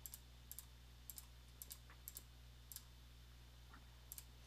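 Faint clicks of a computer mouse and keyboard, many in quick pairs, coming about every half second over a low steady hum.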